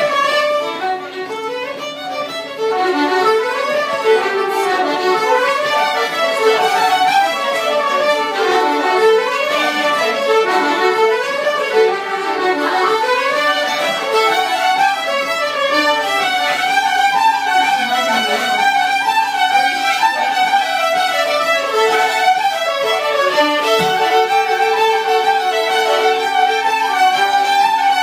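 Fiddles playing a fast Irish traditional dance tune in a session, with quick runs of rising and falling notes over a steady low held note.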